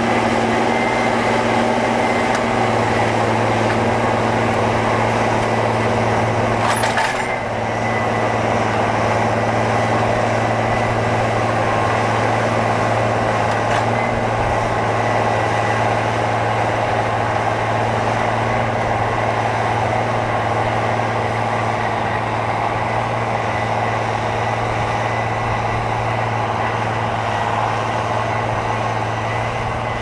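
Farm tractor's diesel engine running steadily under load while pulling a tine cultivator through soil, with a brief break in the sound about seven seconds in.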